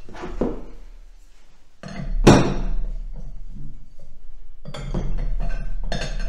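Steel open-end wrenches clinking and clanking against each other and against a brass lance-holder fitting as they are set on to undo a threaded joint, with one sharp ringing clank about two seconds in and a run of lighter metal clicks and rings in the second half.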